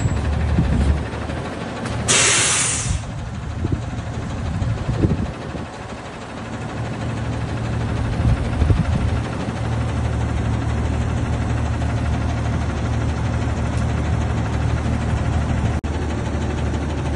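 Front-loading garbage truck's engine idling steadily, with a loud hiss of air from the air brakes lasting about a second, two seconds in. A couple of knocks come in the middle.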